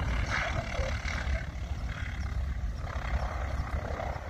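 North American B-25J Mitchell's two Wright R-2600 radial engines running at low power as the bomber rolls out after landing, a steady low rumble.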